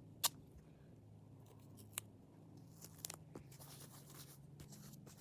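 Scissors snipping duct tape: a few sharp clicks, one about a quarter second in, one at two seconds and a small cluster around three seconds, over a low steady hum.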